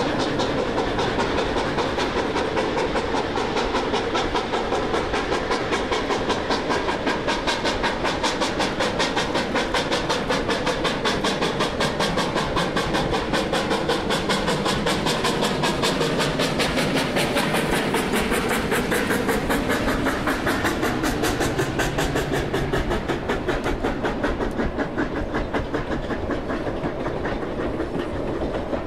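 Narrow-gauge steam train running, with a fast, even rhythmic beat over a steady hiss. It eases off a little near the end.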